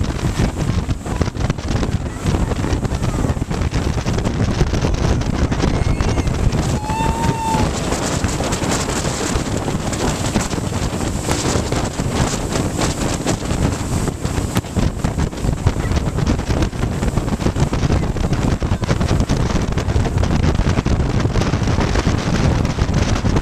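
Jet boat running at speed on a river: a loud steady rush of engine, water jet and spray, with wind buffeting the microphone.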